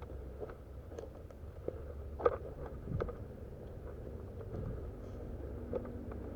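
A vehicle running steadily with a low rumble, with irregular knocks and rattles, the sharpest about two seconds in.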